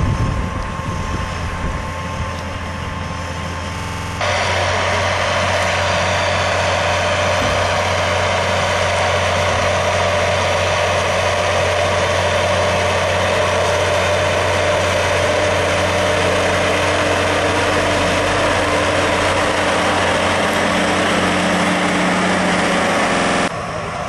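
Large tractor's diesel engine running steadily under load, pulling a disc harrow through stubble. The sound jumps louder about four seconds in and falls back just before the end.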